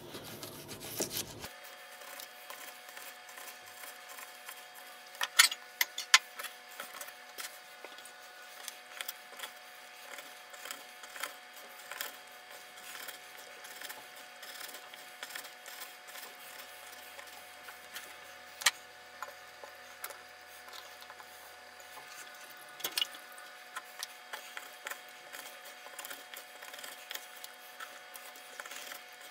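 Small Wenger pocket knife slicing partly frozen chicken breast on a plastic cutting board: repeated cutting strokes and light taps of the blade on the board, with a few sharper, louder clicks scattered through.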